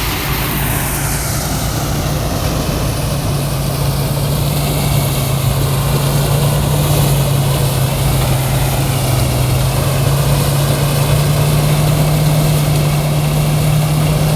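Engine of a truck-mounted rice threshing machine running steadily, a constant low hum whose pitch shifts slightly, over a dense mechanical rumble. The machine's sound is one the uploader likens to a vehicle that is breaking down.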